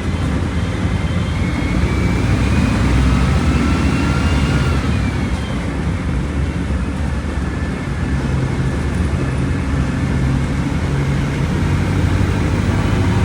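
Volkswagen Volksbus 17.230 Euro 6 bus's diesel engine running steadily as the bus drives. A faint whine rises in pitch over the first few seconds and falls away about five seconds in.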